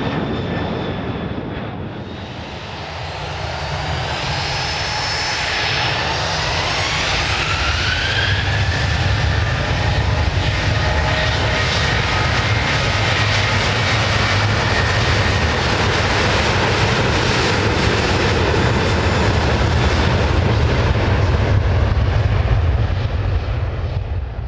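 Airbus A300-600R airliner's twin jet engines at takeoff power: a steady deep roar, with a whine that rises in pitch a few seconds in, as the aircraft takes off.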